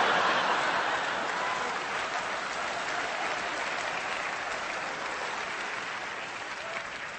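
Audience applauding after a stand-up punchline, loudest at the start and slowly dying down.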